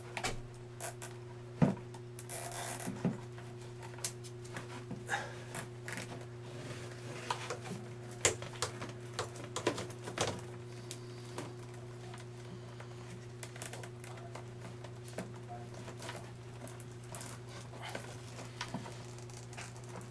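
Handling noise as a plastic cable tie is threaded and pulled tight around a vacuum fill tube and corrugated hose: irregular clicks and rustling of hands on the cloth bag and hose, busier in the first half. A steady low hum runs underneath.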